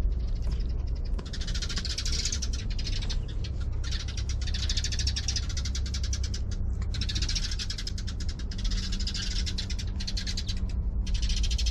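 A cat calling over and over in long, high cries, about five of them, each a second or two long with short breaks between, over a steady low rumble.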